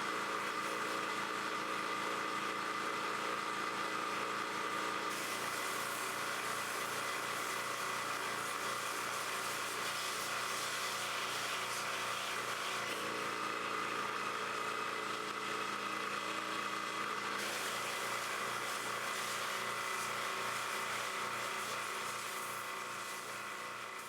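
A motor-driven machine running steadily, a hum with a hiss over it. The hiss shifts about five seconds in and again a few seconds before the end, then fades away right at the end.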